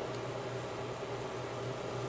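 High-voltage wood-burning rig running: a steady electrical hum under an even hiss as current burns branching figures through the wood between two electrodes.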